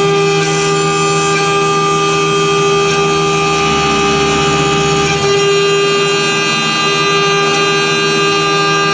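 CNC engraving router spindle running at speed with a steady high whine while it carves a workpiece turning on a rotary attachment; a lower rumble joins for about two seconds midway.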